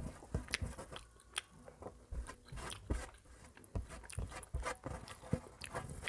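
Close-miked chewing of rice and mutton curry eaten by hand: many short, irregular mouth clicks. Fingers gather and mix rice on a steel plate.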